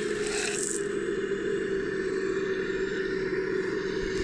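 Steady electric motor whine from a 3D-printed RC excavator working, with gravel pouring out of its bucket and rattling down in the first second.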